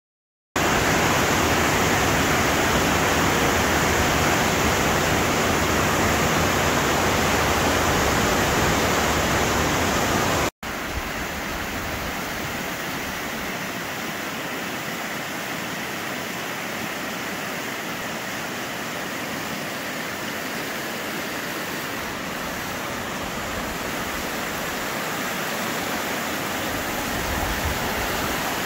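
Rushing water of a fast mountain river's rapids, a steady even roar. It cuts out for an instant about ten seconds in and carries on a little quieter.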